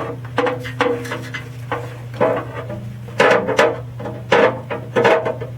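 Irregular metallic knocks and clinks, several with a brief ring, from hand work on a 7.3 PowerStroke diesel's oil dipstick tube and adapter, with a steady low hum underneath.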